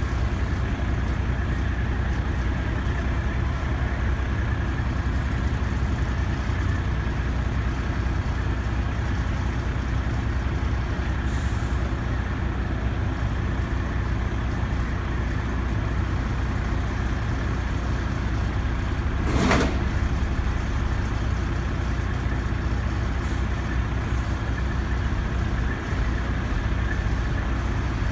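Heavy diesel truck engines idling with a steady low drone. About two-thirds of the way in comes one short, sharp hiss of air from the air brakes.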